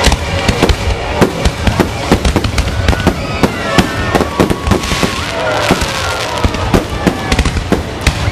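Aerial fireworks bursting overhead: a rapid, irregular string of bangs and crackles.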